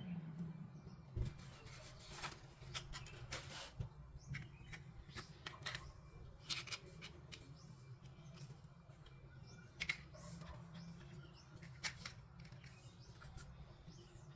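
Plastic toy pieces and packaging being handled: irregular light clicks, taps and rustles, with a few sharper knocks, over a faint steady hum.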